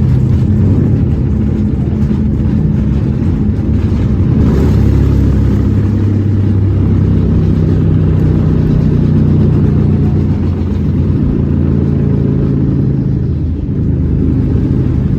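Airbus A321neo jet engines running at takeoff power: a loud, steady low rumble with an even engine hum underneath.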